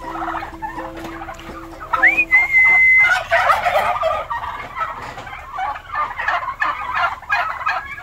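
A flock of domestic turkeys gobbling, many calls overlapping, denser and louder in the second half. About two seconds in, a high whistle-like tone rises and then holds for about a second.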